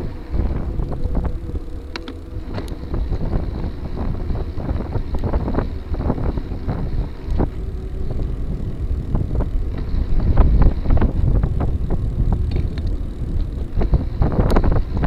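Wind buffeting the microphone while a gravel bike rolls over a rough trail, with a steady low rumble and scattered clicks and rattles; it gets louder about two-thirds of the way through and again near the end.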